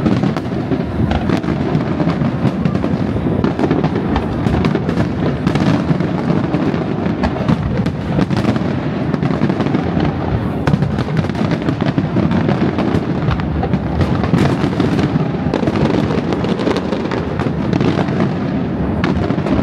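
Aerial fireworks display going off continuously: a dense run of bangs and crackles over a low rumble, with no break.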